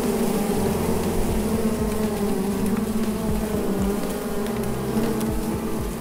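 Many honeybees buzzing together in a steady, dense hum.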